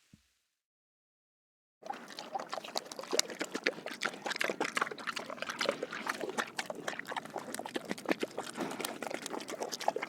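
An animal drinking, lapping and slurping liquid in a rapid, irregular run of wet slurps that starts about two seconds in.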